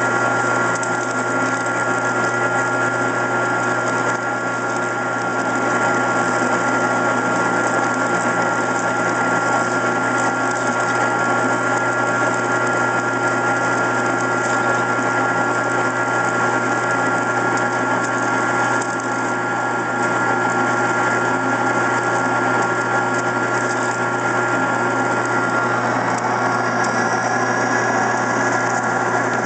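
Benci TY-C0632 metal lathe running at low speed while its tool peels a heavy, deep chip from mild steel without coolant: a steady mechanical hum with a thin high whine that stops near the end.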